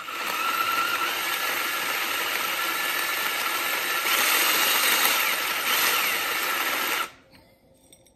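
Cordless drill running steadily, spinning the burr of a stainless steel manual pepper grinder as it grinds pepper, then stopping suddenly after about seven seconds.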